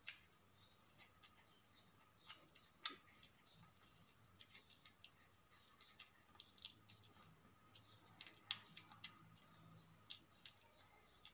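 Faint, irregular clicking and smacking of a kitten chewing food off a tiled floor, with a few sharper clicks among them.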